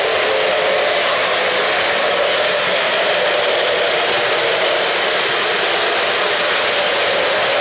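O-gauge three-rail model freight cars rolling steadily along the track, their metal wheels making an even running noise on the rails.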